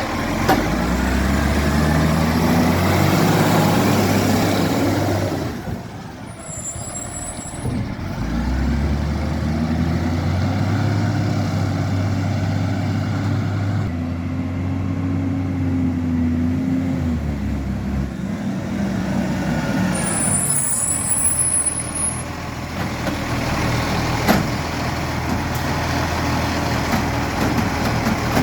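Diesel garbage truck engine revving up and holding high for several seconds, twice, on a truck with an exhaust leak. Short, high air-brake hisses come twice in between.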